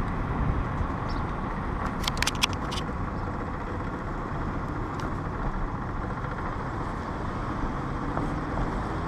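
Steady road and engine noise of a car driving, heard from inside the cabin, with a few sharp clicks about two seconds in.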